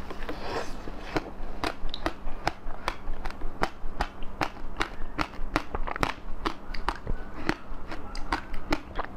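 Close-miked biting and chewing of a frozen ice bar topped with passion-fruit pulp and seeds: a bite near the start, then steady crunching with sharp crackles of breaking ice, about two or three a second.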